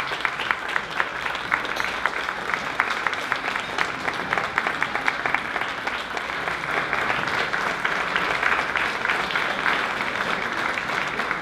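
An audience applauding, many people clapping together.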